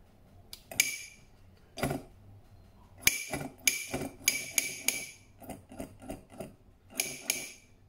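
Small electric push solenoid clacking as its plunger snaps in and out under radio control: about a dozen sharp metallic clicks, each with a brief ring, irregularly spaced with a quick run of them in the middle.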